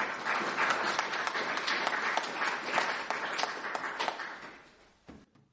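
Audience applauding at the end of a song. The applause starts suddenly, holds steady for about four seconds, then fades away.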